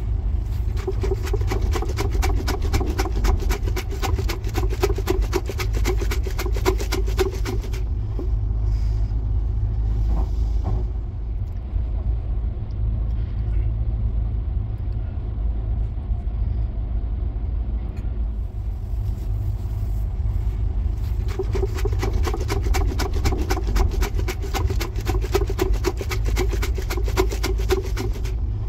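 A Marugame Shake Udon plastic cup of noodles and toppings is shaken hard, and the contents rattle fast and densely against the lidded cup. There are two bouts of shaking: one from the start for about eight seconds, and one from about 21 seconds in to the end. Under it runs the steady low running rumble of the moving sleeper train.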